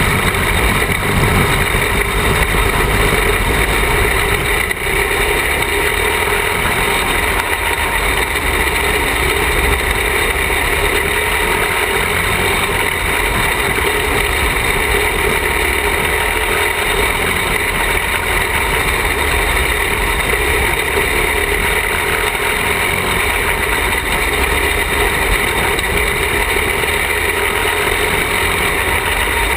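Small racing kart engine running steadily at speed on a dirt track, heard close up from the car, with wind rumbling on the microphone.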